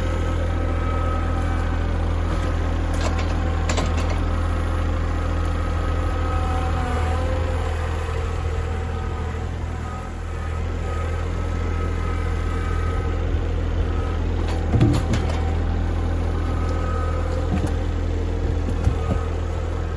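Kubota L3901 compact tractor's three-cylinder diesel engine running steadily while it works a grapple load of logs. A few light knocks come early, and a louder thump falls about three-quarters of the way through.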